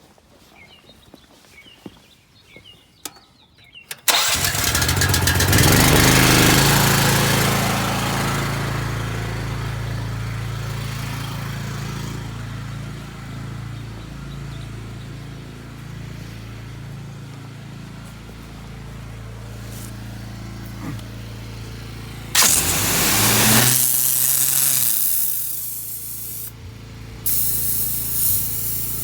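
Hot water pressure washer's engine starting about four seconds in and then running steadily. Later on, the high-pressure spray comes on as a loud hiss, first in a short burst and then steadily near the end.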